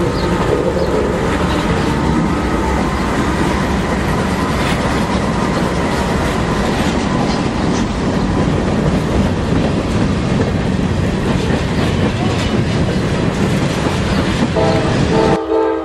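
Freight train passing close by: a diesel locomotive goes past, then a long string of covered hopper cars rolls by with steady wheel clatter on the rails. Near the end a brief horn-like note sounds and the noise drops away suddenly.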